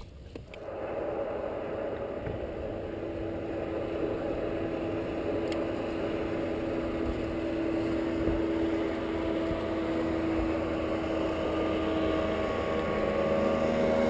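Bass boat's electric trolling motor humming steadily as the boat is worked along the bank, its tone shifting near the end.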